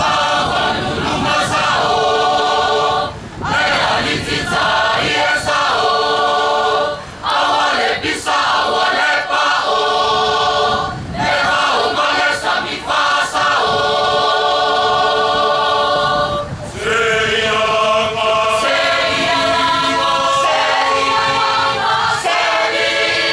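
A group of voices singing together in Samoan, in phrases of about four seconds with short breaks between them.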